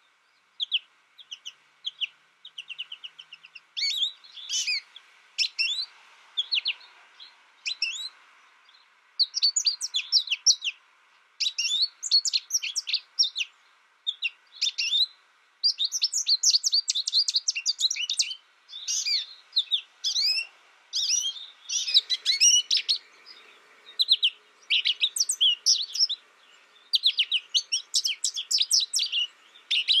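American goldfinch singing: quick runs of high twittering chirps and warbled phrases. The notes are sparse and spaced at first, then come in dense bursts separated by short pauses.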